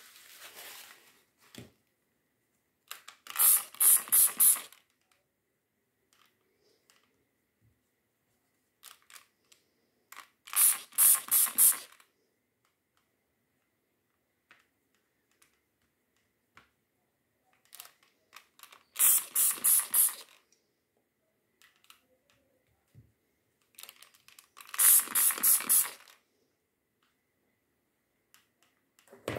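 Hand trigger spray bottle misting water: four runs of four or five quick squirts, several seconds apart, with soft handling rustles between.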